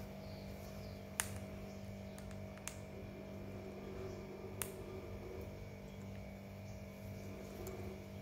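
Rose-ringed parakeet chewing guava, with three sharp beak clicks over a steady low background hum.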